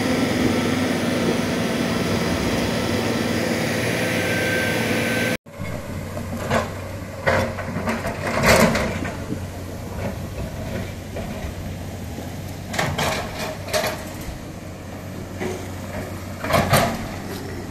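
Heavy earth-moving machinery clearing landslide debris. A wheel loader's diesel engine runs loudly and steadily for the first five seconds. After a sudden cut comes a hydraulic excavator's quieter engine hum, broken by scattered knocks and clatters as it digs through rock and rubble.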